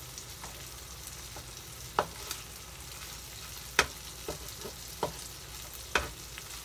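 Salted mackerel fillets sizzling in oil in a frying pan, a steady hiss. A spatula clicks and scrapes against the pan as the fish is moved: three sharp clicks about two seconds apart, with a few fainter taps between.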